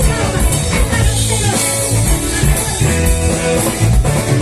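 Live worship band playing between sung lines: guitar over a drum kit and bass with a steady beat.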